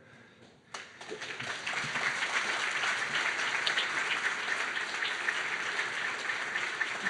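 Audience applause: near quiet at first, then clapping breaks out suddenly under a second in and carries on steadily.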